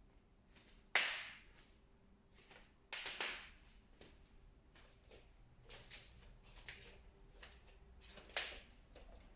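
Wooden floor cracking and popping as it is walked on: loud sharp cracks about one and three seconds in and again near the end, with fainter clicks between. It is an abnormal noise from the wooden floor.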